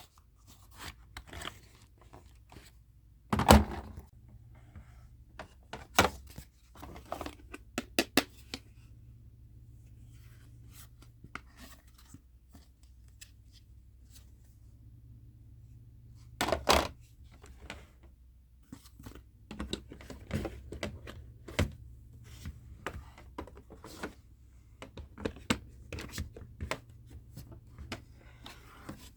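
Unboxing and handling sounds from a kitchen set: scattered taps, clicks and tearing of packaging, with two louder knocks, one a few seconds in and one just past halfway.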